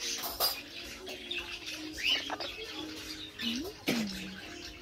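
Amazon parrot giving short soft whistles: a quick rising one about two seconds in and a sharp falling one just before four seconds, with a few short clicks.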